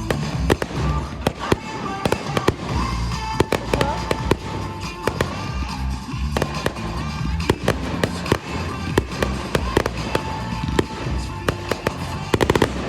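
Fireworks going off over loud music from a sound system: many sharp bangs and crackles, with a quick run of reports near the end.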